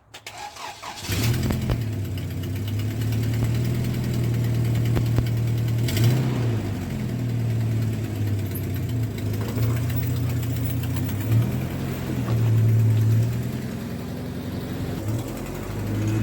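An engine starts about a second in and runs steadily with a low hum that wavers a little.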